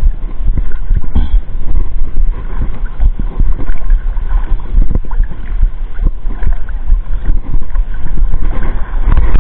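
Wind buffeting the microphone in an uneven low rumble, with shallow sea water lapping and splashing faintly.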